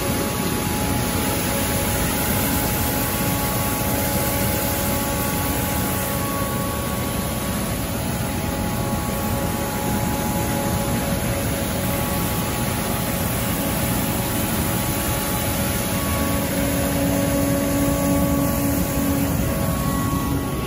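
Street sweeper working close up: a steady rush of engine and vacuum fan with a few faint steady whining tones, as its side gutter broom spins against the curb sweeping up milled asphalt grit.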